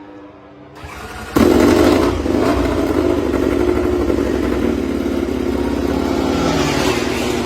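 MotoGP racing motorcycle engine running loud at close range. It cuts in sharply about a second and a half in and then holds fairly steady.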